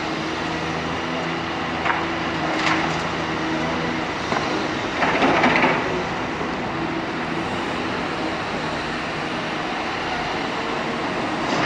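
Cat 325D excavator's diesel engine and hydraulics running steadily under load, with a few knocks and a louder rattling clatter about five seconds in as the bucket empties soil into the steel bed of a tipper truck.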